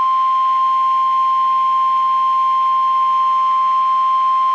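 NOAA Weather Radio warning alarm tone: a single steady, loud 1050 Hz tone over the radio stream, the alert signal that a warning broadcast, here a severe thunderstorm warning, is about to follow.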